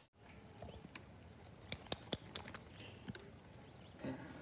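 A dog walking over gravel, with a few light, sharp clinks about four a second in the middle.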